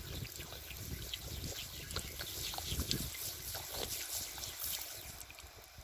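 Water spraying from a garden hose, hissing and spattering with many fine droplet ticks, as an alpaca drinks from the stream. The spray stops shortly before the end.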